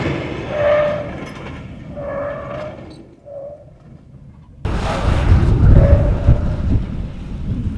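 Pickup truck's tyres squealing in several short bursts during hard swerving at speed, over road and wind noise. The noise turns suddenly louder about halfway through.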